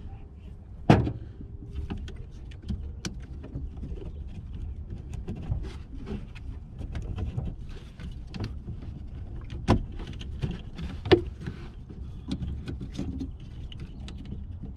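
Hands unplugging and handling plastic wiring connectors beside a 2005 Toyota Prius's 12-volt battery: scattered small clicks and rattles, with sharper knocks about a second in and again around ten and eleven seconds, over a low steady rumble.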